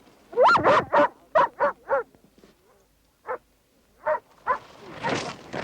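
Dog barking: a quick run of about five barks, then a few single barks spaced out. It has just been sent to search with the command "find!"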